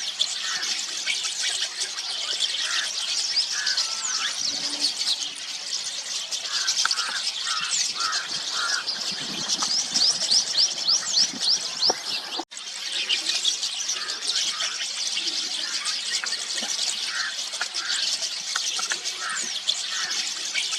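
A flock of rosy starlings chattering, a dense mix of many short high squeaky whistles and chirps over lower, short repeated notes. The sound cuts out for an instant about twelve seconds in.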